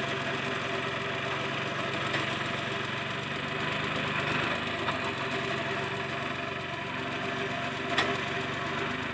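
Mini tractor's engine running steadily, its low note shifting slightly about halfway through, with one short click near the end.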